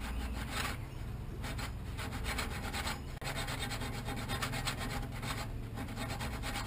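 A bare hacksaw blade, held in a gloved hand, sawing back and forth into the side of a rusted, seized steel suspension bolt on a Suzuki Jimny's trailing arm mount. It makes a steady rasping with a few brief pauses, as it cuts a nick into the thread so the stuck nut will loosen.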